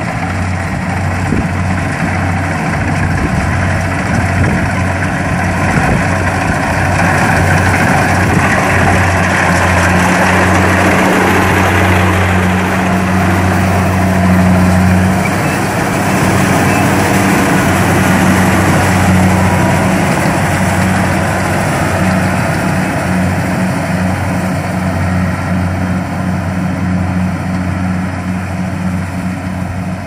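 Kubota DC-70 combine harvester's diesel engine and threshing machinery running steadily while it cuts rice, with a constant low engine hum under a broad mechanical rattle. Louder in the middle as it passes close by, easing off toward the end as it moves away.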